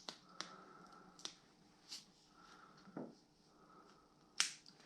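Quiet handling noises while a stick-on heated grip pad is worked onto a snowmobile handlebar: scattered light clicks and taps, with a sharper click near the end.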